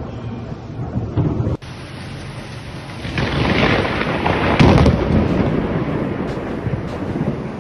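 Thunder rumbling over heavy rain. The sound breaks off abruptly about a second and a half in, then a louder peal builds from about three seconds in, peaks near five seconds and rolls on.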